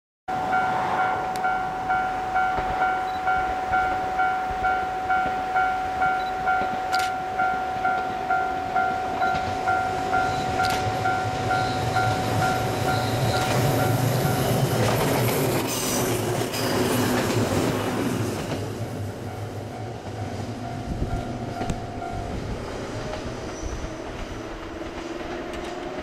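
A Japanese level-crossing warning bell clangs about twice a second. Midway a JR 115-series electric train approaches and passes with a swelling rumble and clickety-clack of wheels over the rail joints. The bell carries on more faintly after the train has passed, then stops, and the train's running noise fades into the distance.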